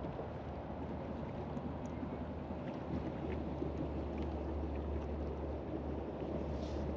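Steady low engine drone that grows a little stronger about three seconds in, over a background of wind and outdoor noise.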